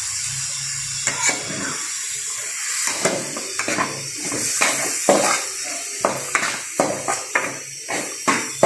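Mutton sizzling in a wide metal kadai as the splash of meat stock just added boils off. From about three seconds in, a steel spatula scrapes and knocks against the pan about twice a second as the meat is stirred.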